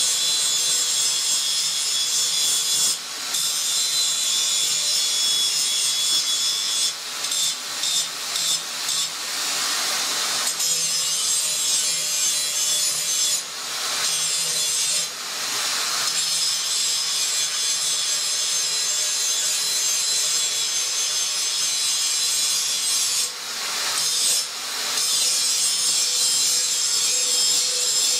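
Angle grinder grinding a metal block held in a vise: a loud, steady, high-pitched grinding hiss with a whine running through it. The level drops briefly a handful of times.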